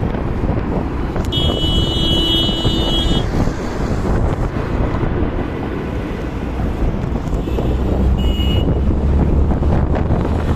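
Wind buffeting the microphone over the rumble of traffic, heard from an open two-wheeler riding through city traffic. A vehicle horn sounds for about two seconds starting a second in, and a shorter horn beep comes about eight seconds in.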